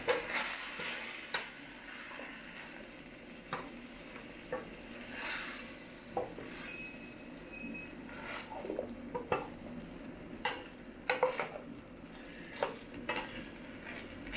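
Vegetables being stirred in a cooking pot: a metal utensil scrapes and clanks against the pot at irregular moments over a light sizzle. The sharpest clanks come at the very start and in a quick cluster past the middle.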